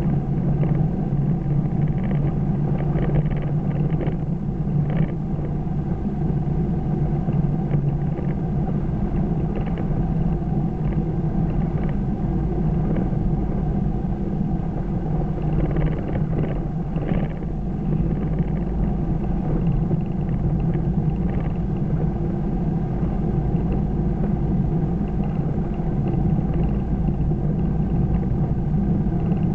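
Steady low rumble of road and engine noise inside a car's cabin while cruising, with a few faint knocks from the road.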